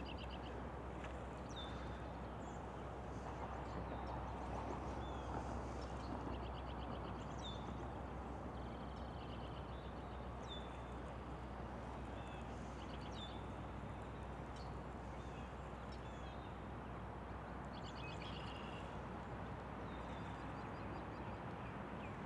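Small songbirds chirping and trilling on and off in short, high calls over a steady outdoor background hiss.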